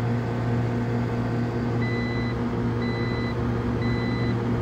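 Air-conditioning outdoor unit running with a steady electrical hum. From about two seconds in, a high electronic beep sounds about once a second, each about half a second long.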